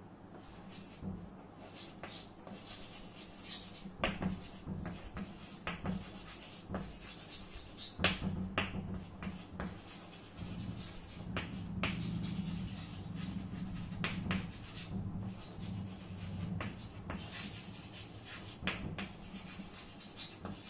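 Chalk writing on a chalkboard: irregular sharp taps and short scratchy strokes as a sentence is written out word by word.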